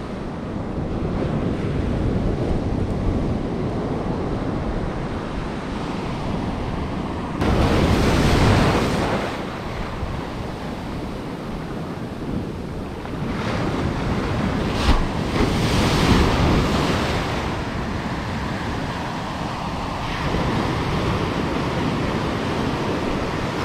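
Ocean surf breaking and washing up the beach, with wind buffeting the microphone. The waves swell and crash several times, the biggest about a third of the way in and again past the middle, with one brief sharp knock among them.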